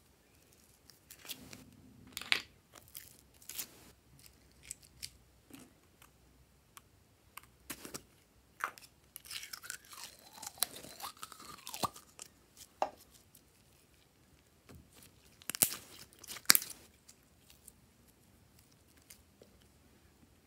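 Slime being handled and squeezed out of plastic novelty containers: scattered sharp clicks and taps of plastic, with wet, crackly squishing. There is a wavering squeak about ten seconds in, and the loudest clicks come about two seconds in and again near sixteen seconds.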